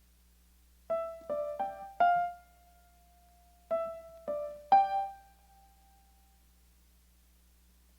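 Piano playing two short, sparse phrases of single notes, four notes then three, each struck and left to fade, the last ringing on for about a second and a half.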